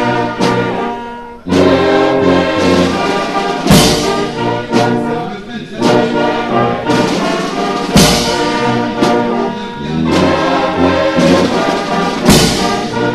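Orchestral music led by brass, with a loud crashing percussion hit about every four seconds and a brief drop in level about a second in.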